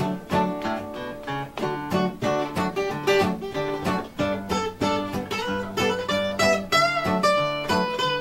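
Background music: an instrumental passage of a song with acoustic guitar playing and no singing.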